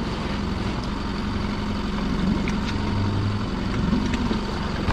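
Small boat's engine idling steadily with a low hum, and a few light knocks over it.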